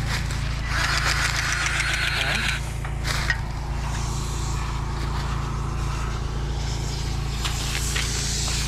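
Diesel engine of harvest machinery running steadily, a deep hum that holds throughout. A rushing noise lasts about two seconds near the start.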